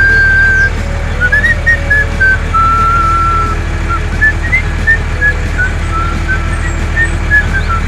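Background music: a whistled melody hopping from note to note over a steady low hum.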